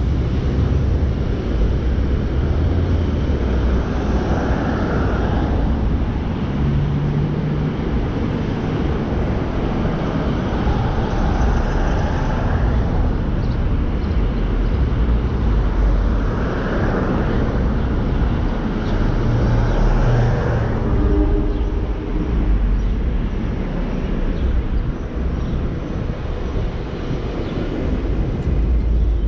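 A car driving, with steady low engine and road noise and a hiss that swells a few times over it.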